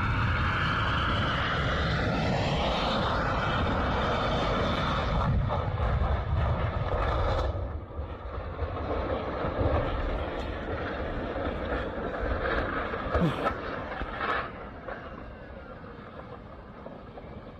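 Boeing 737-800 jet engines running loud with a whine, which drops off suddenly after about seven seconds; quieter rumbling follows, with a few sharp knocks about two-thirds of the way in.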